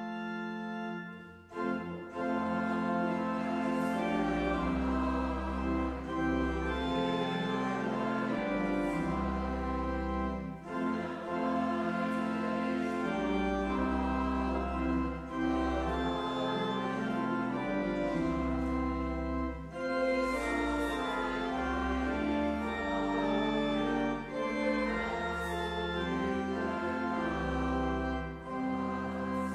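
Church organ playing a hymn tune in full chords with deep pedal bass notes, after a short break about a second and a half in.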